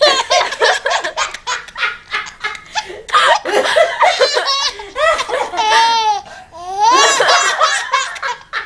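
Baby laughing hysterically: a quick run of short, breathless bursts, then long high-pitched squeals that rise and fall.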